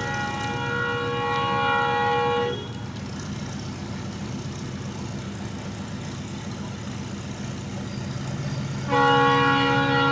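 Indian Railways WDP-4D diesel locomotive's multi-tone horn sounding a long blast that stops about two and a half seconds in. The train's steady rumble follows, and the horn sounds again, louder, about a second before the end.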